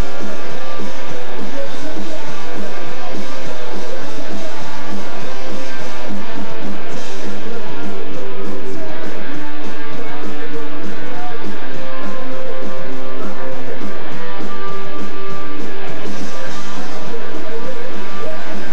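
Live punk rock band playing loudly: distorted electric guitars, bass guitar and drum kit.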